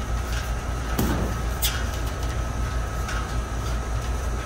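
Steady low background rumble with a faint constant whine, broken by a few light clicks and rustles from hands handling electrical wiring.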